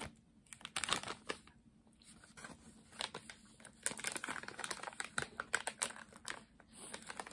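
Thin plastic sweet packaging crinkling and rustling as it is handled and turned in the fingers, a run of irregular crackles.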